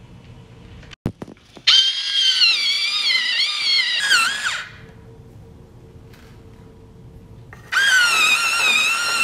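Electric pencil sharpener running with a high, wavering whine as a wooden pencil is pushed in and ground, in two spells: the first starts about two seconds in and cuts off after about three seconds, the second starts again about eight seconds in. A few sharp clicks come just before the first spell.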